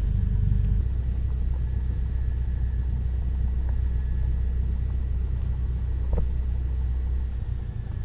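Cessna 172 engine and propeller drone heard inside the cabin, steady and low. It eases down slightly about a second in, and there is a faint click near the end.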